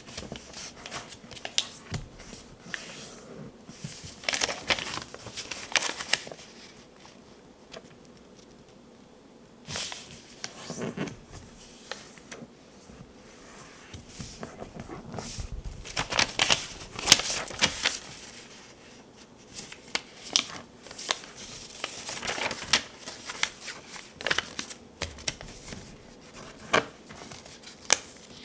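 A sheet of paper being folded by hand on a wooden table: irregular rustling, sliding and sharp creasing sounds, with a few seconds' lull about a third of the way in.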